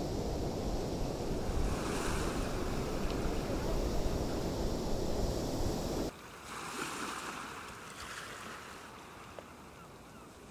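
Ocean surf washing on a sandy beach, with wind rumbling on the microphone. About six seconds in, the sound drops suddenly to quieter surf with one more wave washing in and fading.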